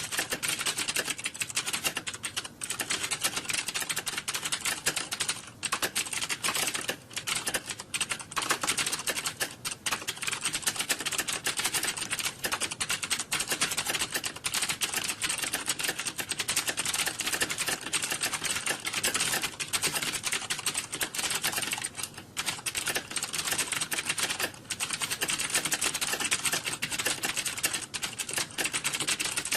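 Fast, continuous typing on a computer keyboard, a steady stream of key clicks with a few brief pauses.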